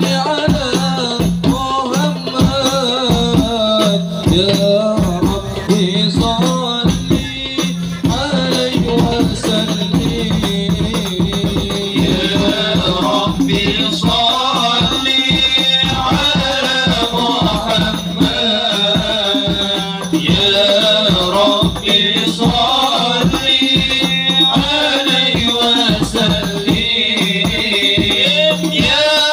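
Sholawat devotional song: a group of men chanting in unison over a dense, steady beat of hand drums.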